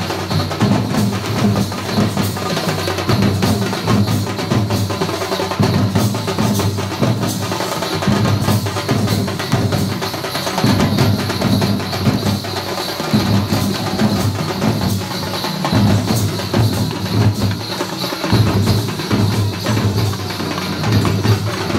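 Drums beaten loud and fast, a dense unbroken run of rapid strokes.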